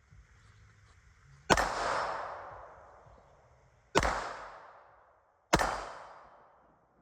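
Three single 9mm pistol shots from a custom Glock 19 with a compensator, the first about a second and a half in and the last two a second and a half apart, each followed by a long echoing decay. The pistol is stovepiping in this string, which the owner puts down to a recoil spring too heavy for the build.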